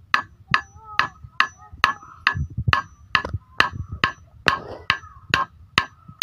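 Claw hammer driving a long steel nail into a thin wooden slat, a steady run of blows about two a second, each with a short metallic ring.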